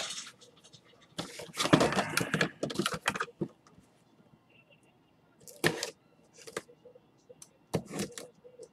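Irregular clicking and rustling: a dense run of quick clicks from about one to three and a half seconds in, then a few single sharp clicks spaced a second or so apart.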